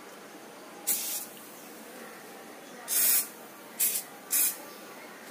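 Rat Away rodent-repellent aerosol can spraying in four short hisses: one about a second in, one near three seconds, then two in quick succession.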